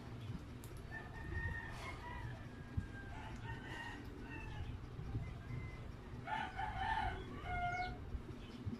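Fowl calling twice: a fainter, wavering call about a second in and a louder one near the end.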